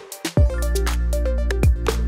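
Electronic background music with a steady beat, deep bass and falling pitch sweeps, briefly dropping out about a quarter second in.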